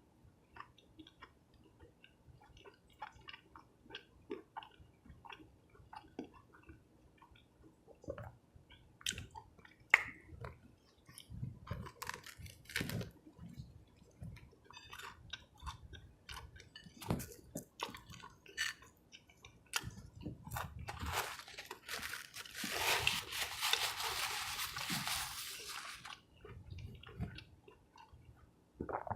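Close-miked mouth sounds of a person biting and chewing a cheese fish sub and fries, many short irregular clicks. About twenty-one seconds in, a louder rushing noise lasts about five seconds.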